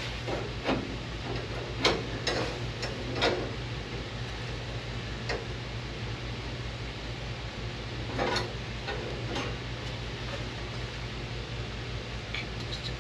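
Scattered, irregular clinks and knocks of sheet steel being handled and worked while a patch panel is bent to shape, over a steady low hum; the sharpest knock comes about two seconds in.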